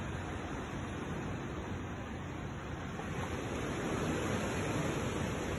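Steady, even rush of outdoor background noise with no distinct events.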